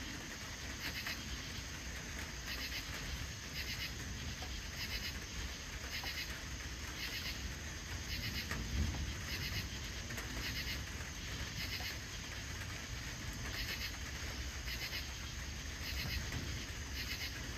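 Crickets chirping in a steady rhythm, about one chirp a second. Under them runs a low rumble that swells slightly about nine seconds in.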